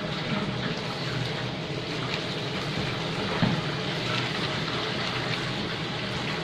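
Wire potato masher working boiled potatoes and cream in an aluminium pot: wet squelching and scraping against the pot, over a steady hiss.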